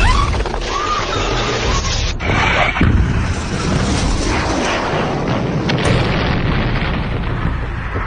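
Loud, continuous rumbling roar of a plane-crash explosion and the fire that follows, with abrupt cuts about two seconds in and again about a second later.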